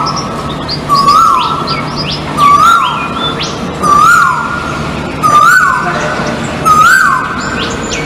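Asian koel calling over and over, a rising note about every one and a half seconds, the calls edging higher in pitch. Other birds chirp higher up in the background.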